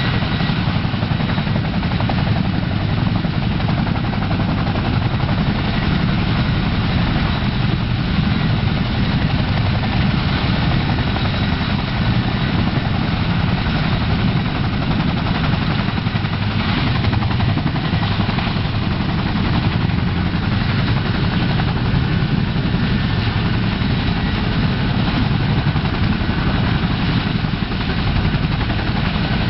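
CH-47 Chinook tandem-rotor helicopter running on the ground, its twin turbine engines and two rotors making a loud, steady deep noise with a thin high turbine whine above it.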